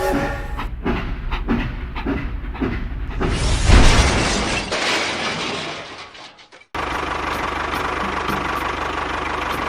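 Small motor machinery with knocking and a rushing noise, then after a sudden cut a small electric motor running steadily with a constant whine.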